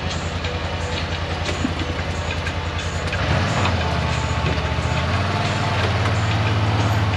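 Four-wheel ATV engine running with a steady low pulse. About three seconds in, the note shifts and grows louder as the throttle opens and the quad reverses.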